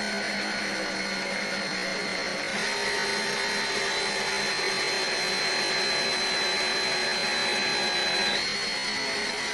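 Electric drill running steadily with a high whine over its motor hum; it gets a little louder about two and a half seconds in and eases back, with a brief wobble in pitch, near the end.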